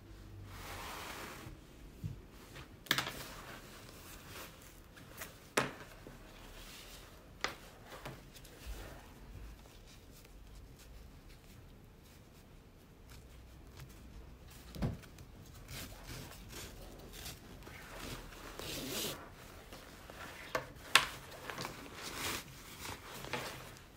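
Quilted nylon drawstring bag being handled: the fabric rustling and swishing as it is squeezed and the cord is pulled, with scattered sharp clicks and knocks and one duller thump about halfway through.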